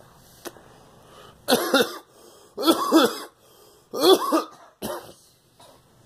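A woman coughing while smoking a cigarette, in four bursts about a second apart. Some bursts hold two coughs close together and carry voice in them; the last is the weakest.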